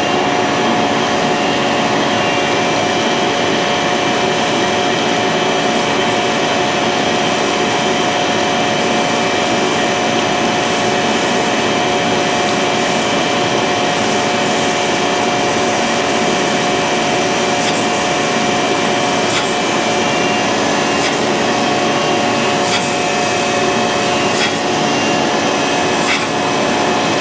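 Cam grinding machine running steadily, its grinding wheel regrinding the fuel pump lobe of a GM L8T camshaft with coolant pouring over it: a steady machine whine with several held tones over a hiss. From about 18 seconds in, faint ticks come roughly every second and a half.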